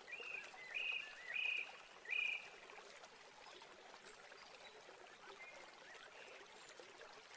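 Four short, high-pitched calls about two-thirds of a second apart, each a quick upward hook into a brief level note, then two fainter calls a few seconds later, over a faint outdoor hiss.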